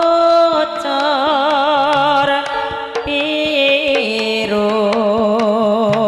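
A Javanese tayub song: a female waranggana singer holding long notes with wide vibrato over gamelan accompaniment with kendang drum strokes.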